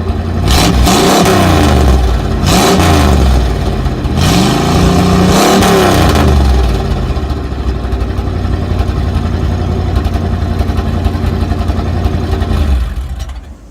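Straight-piped Buick 401 Nailhead V8 with no muffler, revved three times in quick succession and then left to idle. The sound cuts off sharply about a second before the end.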